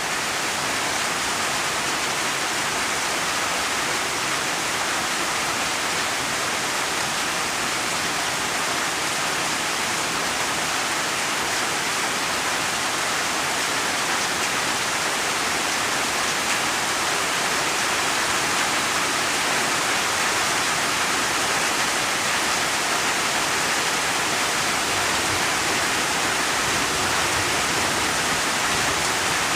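Steady, dense rainfall: an even hiss of many raindrops with no single drops or thunder standing out.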